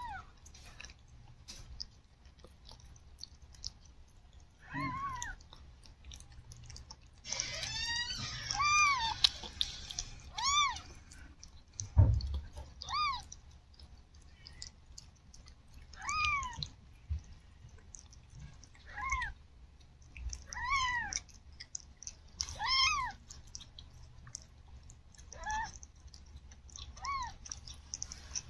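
Newborn kittens mewing: about a dozen short, high cries that rise and fall, with a quick run of several about eight to ten seconds in, against the soft wet sounds of the mother cat licking them. A single low thump about twelve seconds in.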